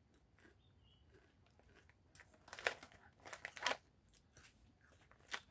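A plastic-foil potato chip bag crinkling as a hand rummages inside it for chips. It comes in a few short bursts from about two seconds in, with one more near the end.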